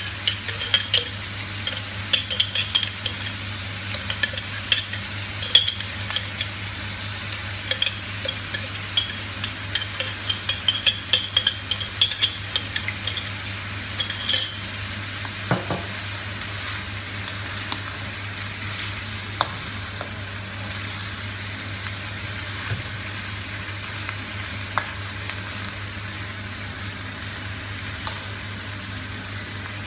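A plastic spatula stirring and scraping chicken meatballs in tomato sauce around a non-stick wok, in a busy run of clicks and scrapes that stops about halfway through. The sauce sizzles steadily on the gas flame throughout, with a low hum underneath.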